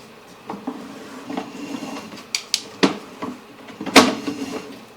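Sewer inspection camera's push cable and reel being pulled back: scattered sharp knocks and clacks, a few close together about two and a half seconds in and the loudest about four seconds in, over a faint steady hum.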